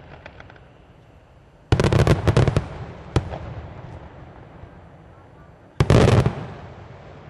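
Fireworks display: a rapid cluster of loud aerial shell bangs about two seconds in, one more bang a second later, and a second loud cluster near the end, each cluster trailing off in a fading rumble. Faint crackling comes just before the first bangs.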